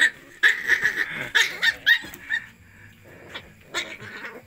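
Puppies eating together from a metal bucket, giving short yips in the first two seconds, followed by a few scattered sharp clicks and knocks.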